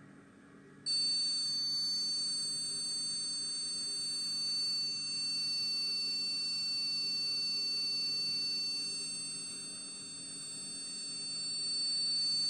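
Buzzer of a PIR motion-triggered cat-repellent circuit sounding one steady, shrill high-pitched tone, switching on about a second in and holding on: the alarm set off by the motion sensor.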